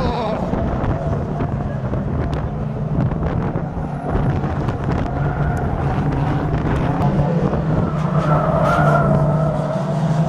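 Engines of several banger racing cars running and revving as they race round the oval, one engine note rising higher about eight seconds in.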